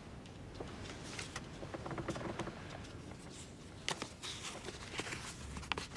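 A folded paper letter being unfolded by hand: faint crinkles and rustles, sharpest about four seconds in and again near the end.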